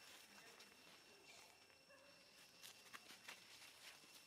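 Near silence: faint outdoor ambience with a few soft scattered clicks and rustles, mostly in the second half, over a faint steady high-pitched tone.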